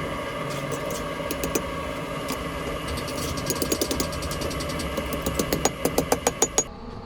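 Light hammer strikes on steel, working the tines of a forged railroad-spike fork, coming in a quickening run of sharp blows from about halfway through. Under them a steady machine hum, which stops shortly before the end.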